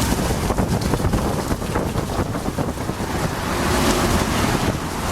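Wind buffeting the microphone: a loud, gusting rumble of noise with no speech.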